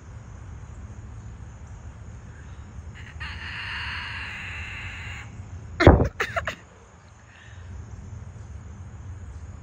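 Outdoor background with a steady low rumble and an insect buzzing for about two seconds, starting about three seconds in. A few sharp knocks about six seconds in are the loudest sounds.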